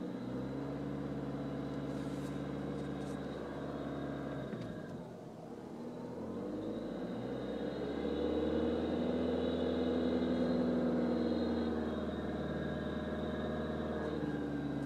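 2012 Volkswagen Jetta TDI's four-cylinder turbodiesel running. Its engine speed drops about five seconds in, then climbs and holds higher and louder from about eight seconds. The owner hears a rattling, hissing noise from 1,000 rpm up, which the dealer called normal.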